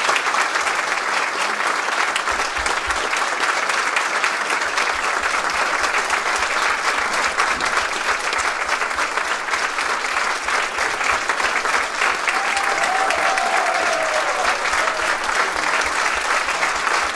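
Audience applauding: steady, sustained clapping from a large crowd.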